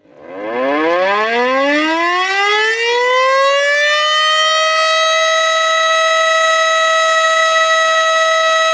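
Tornado warning siren winding up: its pitch rises steadily for about the first four seconds, then holds one steady, loud tone.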